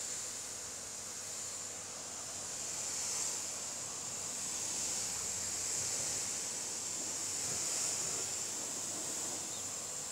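Pressure washer spraying water onto a foam-covered car, rinsing off the snow foam: a steady high hiss that swells and eases as the wand moves, with a faint steady hum underneath.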